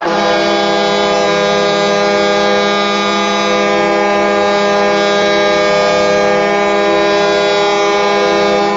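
Hockey arena goal horn blowing one long, steady blast, several notes sounding together as a chord, starting abruptly and holding without change.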